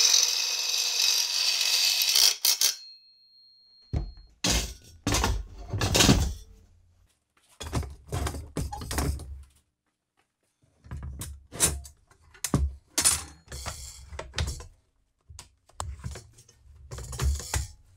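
A cordless drill-driver runs for about two and a half seconds, driving a screw into the aluminium battery rack. After a short pause come repeated knocks and thuds, some in quick clusters, as heavy Battle Born lithium battery cases are set down, slid into the aluminium rack and stacked.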